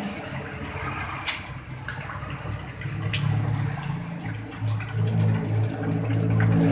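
Water splashing and trickling into a small garden pond from an inflow and a concrete dolphin fountain's spout. A low hum runs underneath and grows louder in the second half, with a couple of faint clicks.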